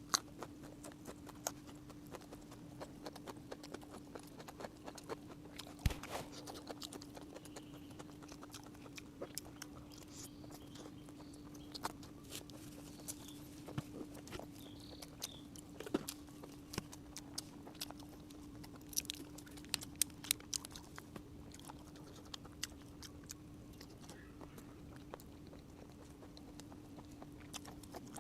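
Close-up chewing and mouth sounds of someone eating, with scattered short smacks and clicks, over a steady low hum.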